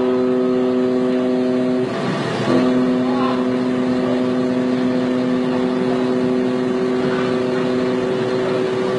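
A ship's horn sounding long, steady blasts as a warning while two vessels close on each other, with a short break about two seconds in.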